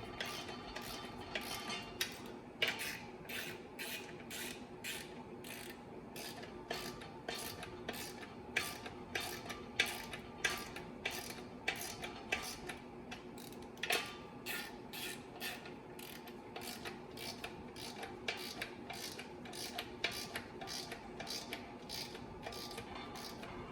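Hand ratchet wrench clicking in a steady run of short strokes, about two to three clicks a second. It is drawing the clutch pressure-plate bolts down a little at a time, working evenly around the assembly.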